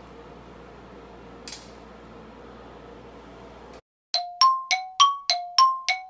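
Faint room tone with a single light click about a second and a half in. It cuts out about four seconds in, and a fast run of bright ringing dings begins, about three a second, alternating between two pitches: a chime sound effect.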